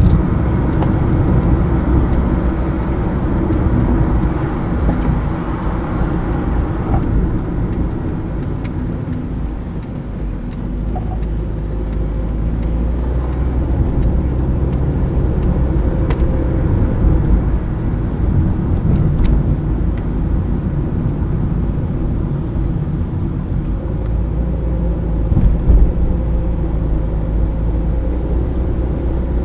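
A car driving on a road, with steady engine and tyre rumble. A faint, regular ticking runs alongside it and stops about halfway through.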